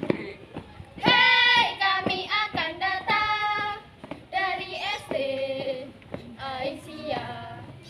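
A young girl singing a scout yell (yel-yel) in short phrases with held notes, loud from about a second in.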